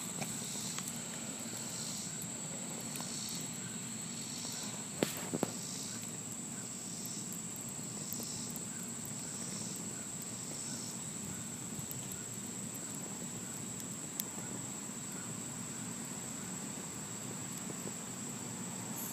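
Steady high insect whine with soft chirps about once a second. A few sharp clicks come about five seconds in.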